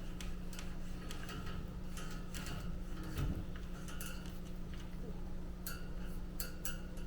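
Irregular light clicking and tapping, several small hard clicks a second, with a soft low thud about three seconds in.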